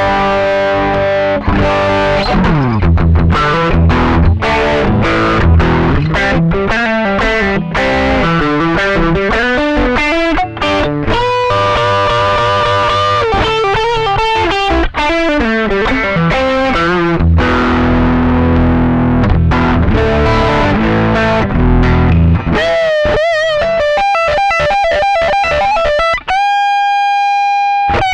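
Electric guitar played through overdrive: fast riffs and runs over low chugging notes, then, for the last few seconds, single held notes with wide vibrato.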